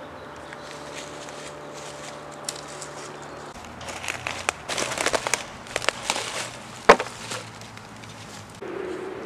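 Footsteps crunching through dry fallen leaves, starting about four seconds in as irregular crackles, with one sharp crack just before seven seconds.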